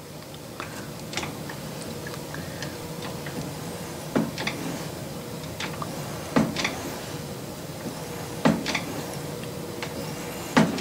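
Lathe carriage knocking against its carriage stop at the bottom of each hand-fed slotting stroke: a thunk about every two seconds, four in all from about four seconds in, with lighter clicks between. A cutoff tool, used like a shaper, is cutting a keyway a few thousandths per pass in an aluminum handwheel's bore.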